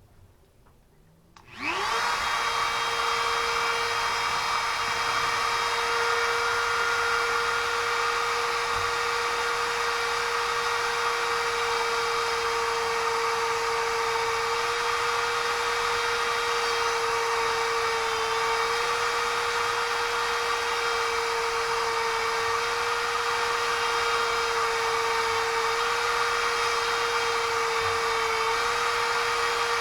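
Small plug-in electric drill with a tiny bit, starting about a second and a half in with a rising whine, then running at steady speed; its pitch dips slightly a few times.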